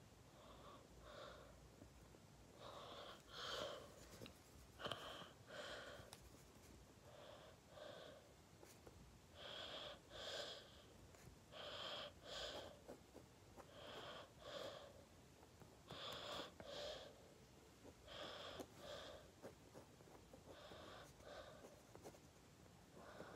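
Faint breathing close to the microphone, a soft in-and-out pair about every two seconds.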